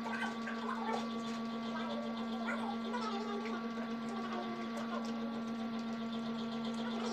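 A steady electrical hum, with quiet mouth sounds of gnawing meat off a roast pork rib bone and faint background voices.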